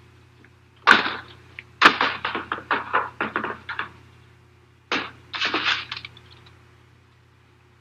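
Typewriter clacking in quick irregular bursts, with a couple of sharp knocks, over the steady hum of an old film soundtrack.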